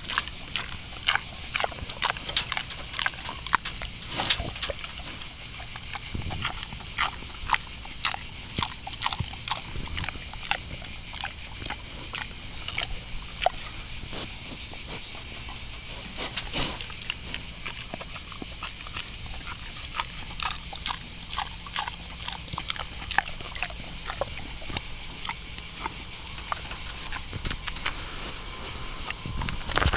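Wild boar chewing bananas: an irregular run of short, sharp chewing clicks.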